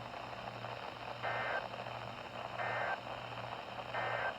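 Emergency Alert System SAME header received over a radio: three short data bursts about 1.3 s apart, over steady radio static and a low hum. It is the coded start of an alert.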